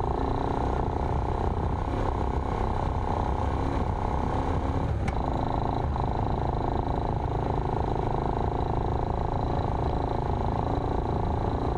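Steady cabin noise of an off-road vehicle driving on a sandy dirt track: a continuous engine and tyre drone with one sharp click about five seconds in.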